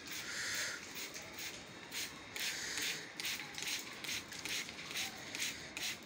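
Hand trigger spray bottle squirting a fine water mist: about a dozen short hissing sprays in quick succession.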